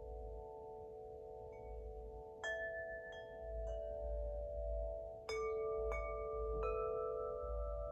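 Spring wind chime (the wood-element chime) struck in two runs of three notes, about two and a half and five seconds in. Its clear metallic tones ring on and overlap over tones still sounding from earlier strikes.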